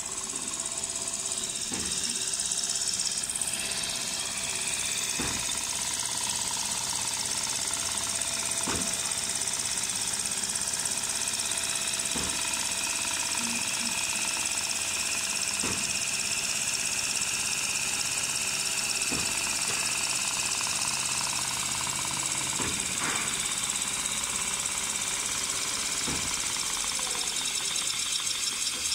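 Richpeace computerized quilting machine running continuously as it sews a zigzag pattern: a steady mechanical whir from the sewing head and frame drive, with a short knock about every three and a half seconds.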